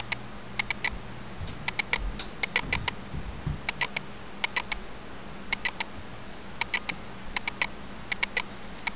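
Sharp clicks in quick groups of three or four, a group about every second, over a steady low hum.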